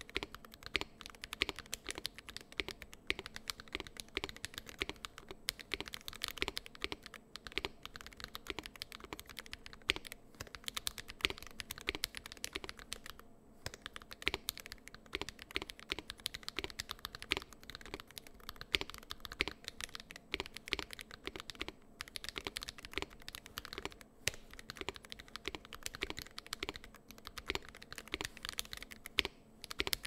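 Fast, continuous typing on a gasket-mounted Ikki68 Aurora mechanical keyboard with stock Boba U4T tactile switches and PBT keycaps. The keystrokes come in a dense, steady stream with only a couple of short pauses.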